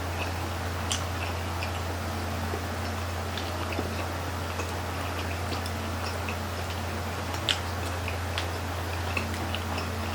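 Close-up chewing and mouth sounds of people eating grilled chicken intestine skewers: scattered wet clicks and smacks, a few sharper ones about a second in and near the end, over a steady low hum.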